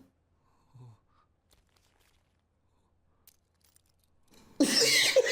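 Near silence for about four seconds, then a sudden loud, breathy burst of a man laughing.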